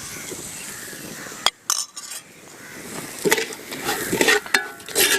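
Onion and spice masala sizzling in hot oil in a pan while a spoon stirs it, scraping and clinking against the pan in a quick series of strokes in the second half.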